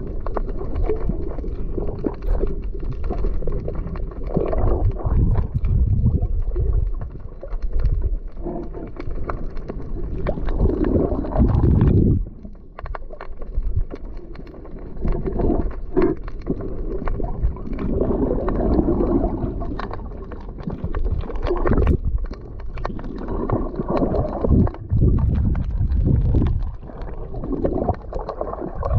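Muffled sloshing and gurgling water, swelling and easing every few seconds, with occasional small knocks.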